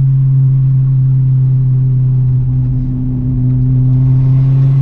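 C7 Corvette's 6.2-litre V8 with a stage 4 cam, running loud and steady at a nearly constant engine speed. The level eases slightly in the middle and picks up again near the end.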